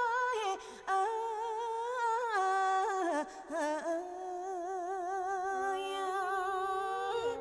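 A woman singing unaccompanied in the Thai lae style: long, ornamented held notes with a wide, slow vibrato, broken by a couple of short breaths.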